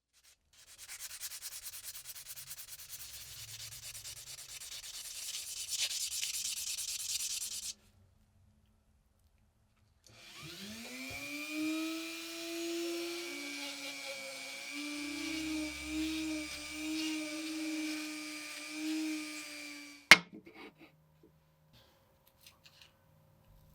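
Rapid back-and-forth hand sanding for about seven seconds. After a pause, a small electric rotary tool spins up and runs steadily for about ten seconds, then stops with a sharp click.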